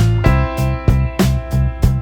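Background music with a steady beat: a funky groove with bass, drums and guitar.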